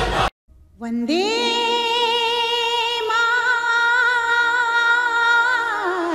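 Background music: after a brief dropout, a female voice slides up into one long held note with vibrato over a faint low drone, gliding down near the end.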